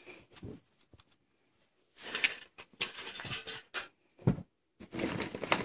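Hands rummaging among small plastic doll hair accessories, rustling and clattering in two stretches, with a soft low thump about four seconds in.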